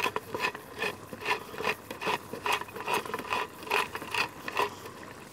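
Tall wooden pepper mill being twisted by hand, grinding pepper in rhythmic crunching strokes, about two and a half a second, that stop near the end.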